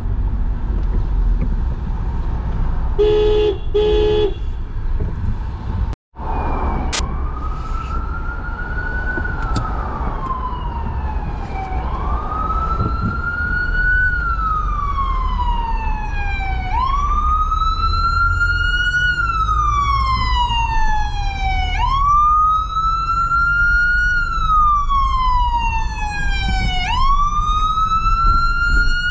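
Emergency vehicle siren wailing over city traffic rumble, each cycle a quick rise in pitch and a long slow fall, repeating about every five seconds and growing louder. Two short car horn beeps about three and four seconds in.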